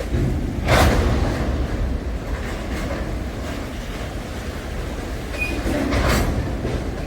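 Long freight train rolling past at speed: a steady low rumble of steel wheels on rail, with a sharp clack of wheels over a rail joint about a second in and again near the end.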